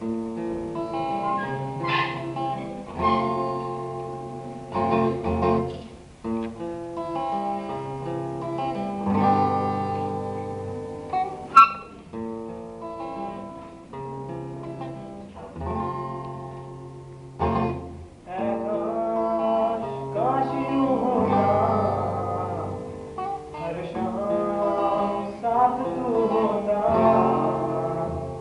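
Acoustic guitar playing a slow picked intro of sustained chords and notes, with a singing voice coming in about two-thirds of the way through. A single sharp click near the middle.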